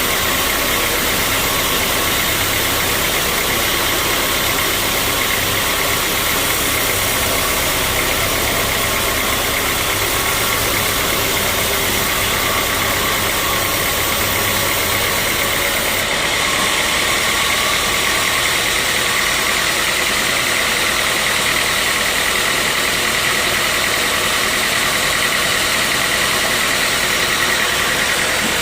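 Sawmill saw running steadily under power, cutting through a mahogany log, with a steady high whine that grows stronger about halfway through.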